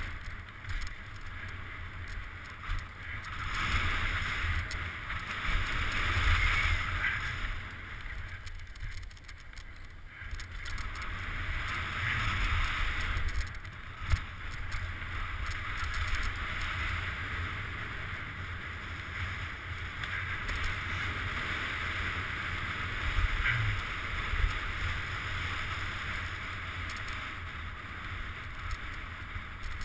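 Wind buffeting a helmet-mounted camera over the hiss of mountain bike tyres on a packed-dirt trail during a downhill run. The noise rises and falls, and there is a single sharp knock about two-thirds of the way through.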